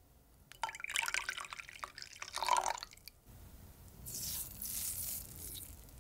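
Milk poured into a glass bowl of beaten eggs, splashing and trickling for about two seconds. Then a softer, higher hiss as a teaspoon of sugar is sprinkled in.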